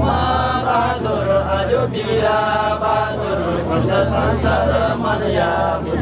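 Jhakri shamans' ritual chant: a man chanting into a microphone, with more voices joining in, over a steady low hum.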